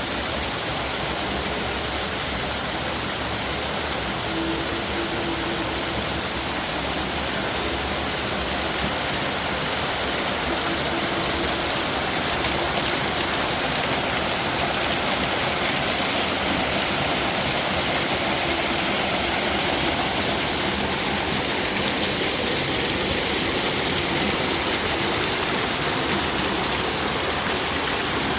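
Waterfall running: a steady, even rush of falling and splashing water.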